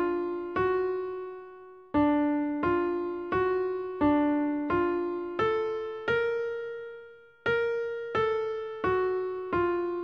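Background music: a slow melody of single piano-like notes, each struck and left to fade, about one every 0.7 seconds, with two notes held longer.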